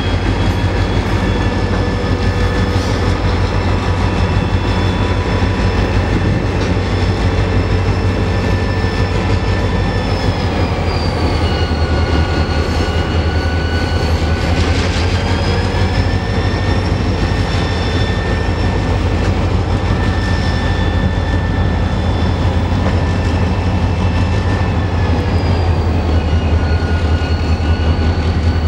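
Freight train rolling steadily past: a constant low rumble of wagons on the rails, with high, drawn-out wheel squeal whose pitch slides down and back up a couple of times.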